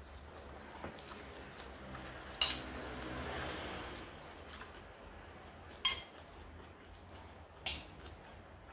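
Metal spoon clinking against a bowl while eating: three sharp clinks a few seconds apart.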